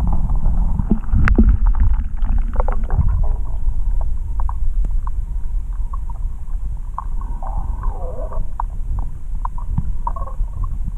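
Underwater sound picked up by a camera held below the surface while snorkeling: a steady low rumble of water moving against the camera, loudest in the first three seconds, with scattered clicks and a few short gurgles of bubbles later on.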